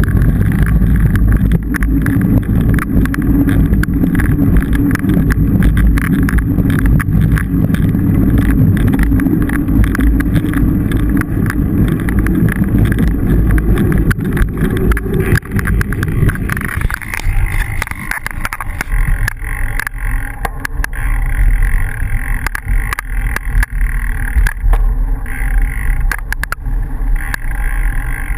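Bicycle riding noise picked up by a bike-mounted camera: a steady rumble of tyres rolling on a dirt road with the bike rattling. A little over halfway through, the deep rumble drops away and the sound turns thinner and more rattly.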